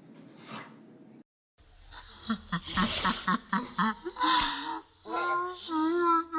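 A short, sharp sneeze a little past the middle, after a run of quick high-pitched yelps and followed by drawn-out, wavering cries.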